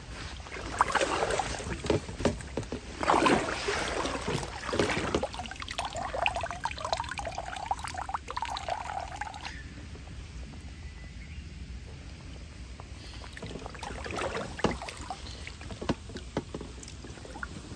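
Blue dip net being swept and jabbed through shallow stream water under bankside brush, with splashing and sloshing over the first five seconds. Water then runs off as the net is lifted, followed by a quieter stretch and a few more splashes near the end.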